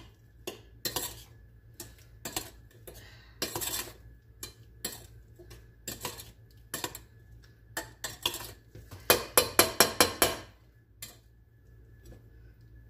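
Spoon stirring berries in a small stainless steel saucepan, clinking and scraping against the pan in irregular strokes, with a quick flurry of clinks about nine to ten seconds in.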